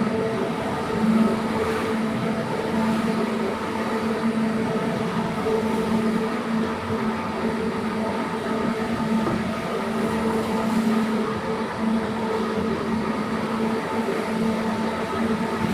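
Carpet-cleaning machine running steadily with a constant hum.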